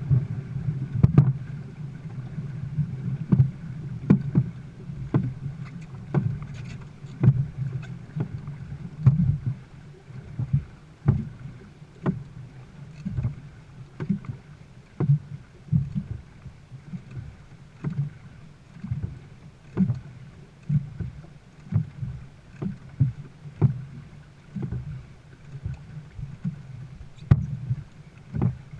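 Dragon boat crew's paddle strokes, a sharp knock about once a second in a steady rhythm, over a continuous low rumble of wind and water.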